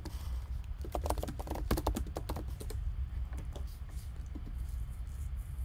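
Computer keyboard being typed on: a quick run of keystrokes about a second in, then a few scattered key clicks, over a steady low hum.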